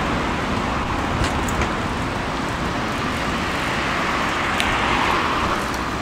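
Steady road traffic noise, swelling about five seconds in as a car goes by, with a few light clicks.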